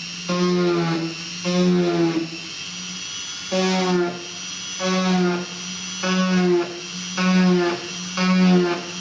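Dremel 3000 rotary tool running at a steady whine, its bit pressed into a model aircraft's wing skin through a rivet template about once a second to mark each scale rivet, each press giving a short buzzing grind; seven presses, with a longer pause near two seconds in.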